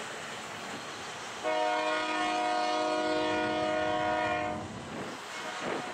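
A diesel freight locomotive's air horn sounds one long, steady chord for about three seconds, starting about a second and a half in. Under it runs the steady rumble of a double-stack intermodal train's cars rolling past.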